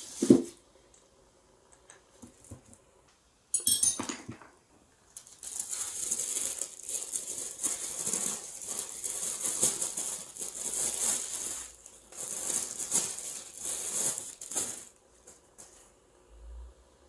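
Thin tissue wrapping paper rustling and crinkling for about ten seconds as it is pulled off wooden marble-run pieces. Before it come a knock just after the start and a sharp clack about four seconds in.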